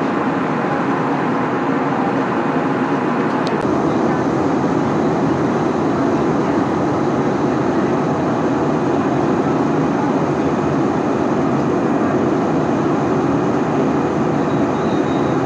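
Steady jet airliner cabin noise in flight: engine and airflow noise heard from a window seat inside the passenger cabin. A single click sounds about three and a half seconds in.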